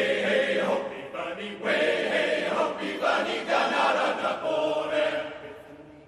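Male voice choir of tenors and basses singing together, the sound dying away about five seconds in.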